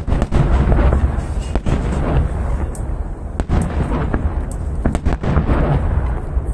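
Fireworks display fired from river barges: aerial shells bursting in deep booms one after another over a continuous low rumble.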